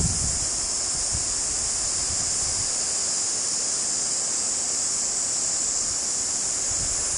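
Steady, high-pitched chorus of insects singing without a break, over a faint, even low rush.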